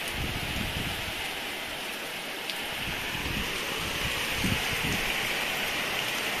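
Heavy rain pouring steadily, with gusts of wind buffeting the microphone now and then as low rumbles.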